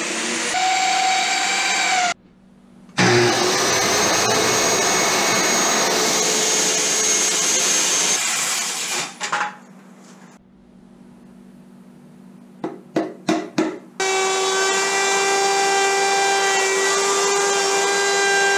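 Plunge router running and cutting into a hardwood thwart, used to cut the opening through to the daggerboard trunk. It is heard in several separate runs: it spins up with a rising whine at the start, runs for a couple of seconds, runs again for about six seconds, then gives four or five brief bursts and runs steadily again near the end.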